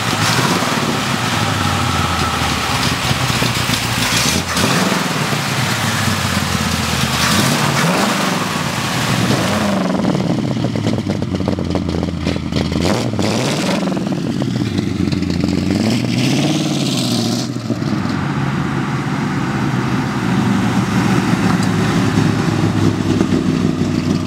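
Small-block 400 V8 with headers and glasspack mufflers running with a deep exhaust note, blipped up and back down to idle about six or seven times in the middle stretch.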